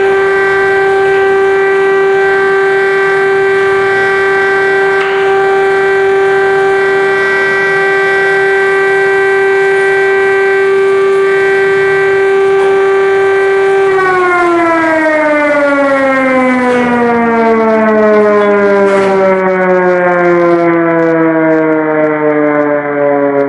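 Air-raid siren sounding a loud, steady tone, then about fourteen seconds in its pitch begins to fall slowly as it winds down.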